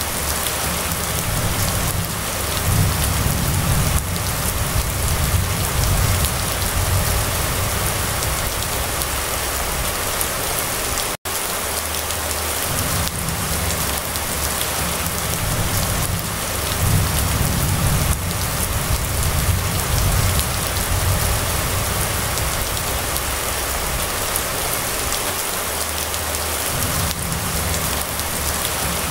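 Steady, heavy rain pouring onto a wet paved road, a dense even hiss, with a low rumble that swells and fades underneath. The sound breaks off for an instant about eleven seconds in.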